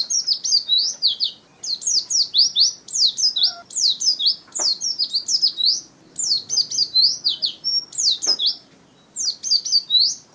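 White-eye (pleci) singing energetically: fast runs of high, quickly falling notes, delivered in phrases of a second or two separated by short pauses. Two faint clicks sound about four and a half and eight seconds in.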